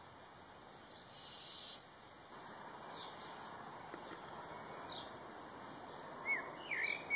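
Young barn owl's hissing, rasping begging call, the 'snoring' of a barn owl chick: one louder burst about a second in, then fainter hissing. High chirping notes start near the end.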